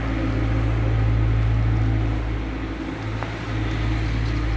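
Steady low mechanical hum of a running engine or machine on a building site, with a faint tick about three seconds in.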